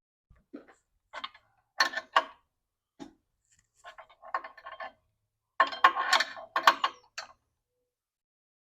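Hand ratchet wrench clicking in several short bursts of rapid ticks, with pauses between strokes, as a nut is run down on the winch mounting bolts.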